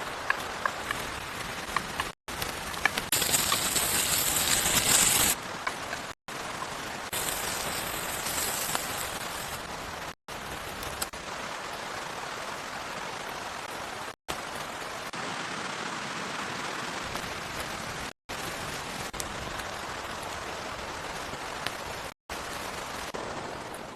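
Rain falling as a steady hiss. The sound drops out briefly about every four seconds, and the hiss is brighter and louder for a couple of seconds near the start.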